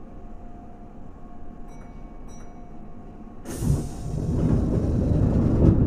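Keihan 2200 series electric train pulling out of a station stop: two short beeps about two seconds in, then a sudden loud hiss over a low rumble as the train sets off, the hiss cutting off abruptly near the end.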